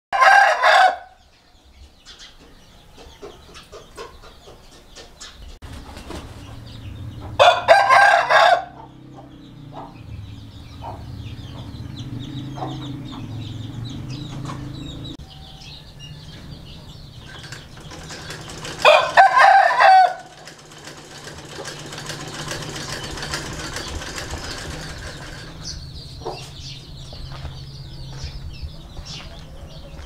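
Aseel rooster crowing three times, short crows about ten seconds apart, with a steady low hum between them.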